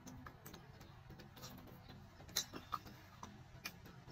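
A few faint, sharp mouth clicks and lip smacks from chewing soft grilled eggplant, close to the microphone.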